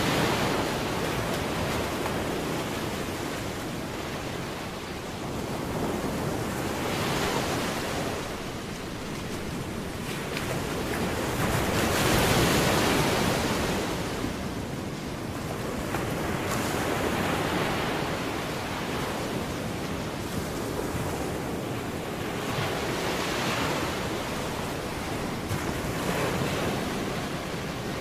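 Ocean surf: waves breaking and washing up the beach, swelling and fading every few seconds, with some wind on the microphone.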